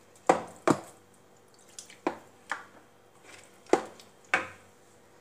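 Rava dosa batter being beaten by hand in a plastic bowl: wet slapping strokes, two quick ones at the start, then four more spaced out.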